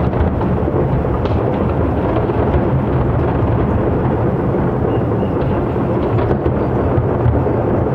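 Aerial fireworks shells bursting in rapid succession, their booms running together into a continuous low rumble.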